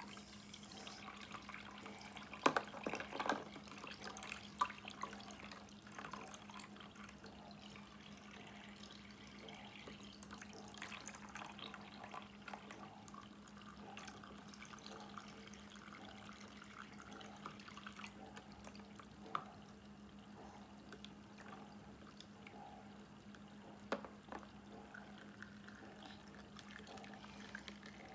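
Water trickling from the faucet of a battery-powered toy sink, over a steady low hum, with a few short knocks early on and later.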